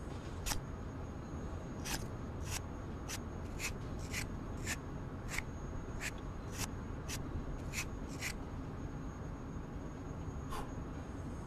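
A run of short, sharp clicks, about two a second for some eight seconds and one more near the end, as round pieces are cut out of a watermelon's rind, over a steady low hum.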